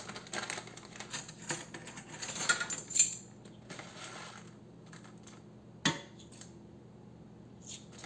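Coriander seeds shaken from a plastic bag into a stainless steel saucepan: a quick run of small clicks and rattles over the first three seconds, then quieter, with one sharp click about six seconds in.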